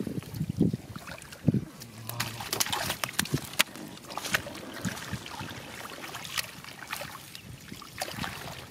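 Hands splashing and groping through shallow muddy water and weeds, with irregular sharp splashes and a few dull low sloshes in the first two seconds.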